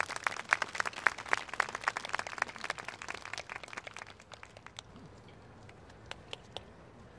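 Audience applauding, the clapping thinning out after about four seconds to a few scattered claps.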